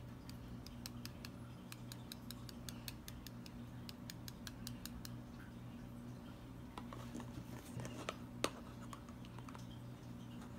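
Small mesh strainer tapped by fingertips to sift mica powder, giving light rapid ticks at about five a second for the first few seconds. A few scattered clicks follow, with one sharper click near the end, over a low steady hum.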